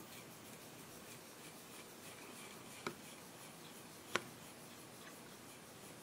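Microfiber cloth rubbing faintly over the metal lid of a CPU seated in its motherboard socket, wiping the surface clean before thermal paste goes on. Two sharp clicks stand out, about three seconds in and again just over a second later.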